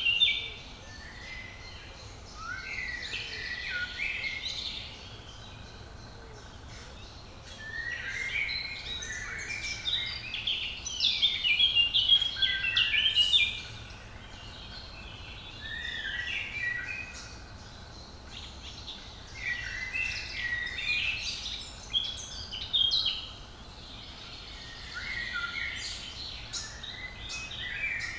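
Songbirds singing in the woodland, phrases of quick, high, varied notes coming in bouts of a few seconds with short pauses between them, over a faint steady low background hum.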